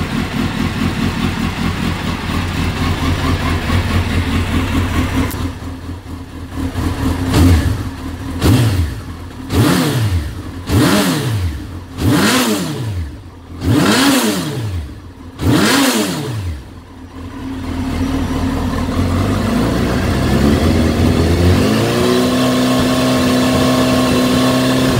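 Suzuki GSX1300R Hayabusa's inline-four engine, breathing through an aftermarket Akrapovic carbon slip-on muffler, idling steadily. It is then given about six sharp throttle blips a second or so apart, each revving up and dropping straight back. It then settles into a steady idle.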